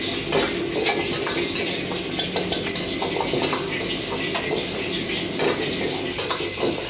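Onion, garlic and chilli sizzling in a hot pan, with a spatula stirring and scraping against the pan in many short clinks and scrapes.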